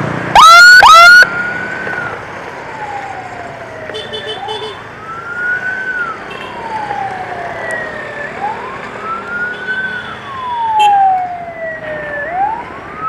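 Ambulance siren on a slow wail, rising and falling in pitch about every four seconds. About half a second in, two short, very loud rising whoops sound first.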